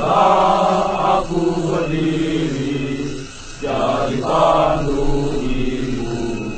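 Men chanting in long, drawn-out phrases, three of them, with a short break before the last one.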